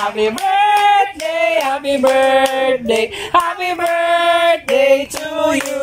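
A group of people singing together in long held notes, clapping along in time.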